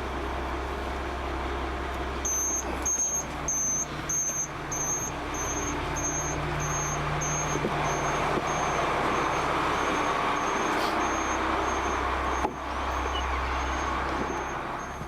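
A vehicle engine idles steadily while a high-pitched beep repeats about one and a half times a second, the indicator for the four-way hazard flashers that were just switched on. The beeps start about two seconds in and grow fainter after the middle.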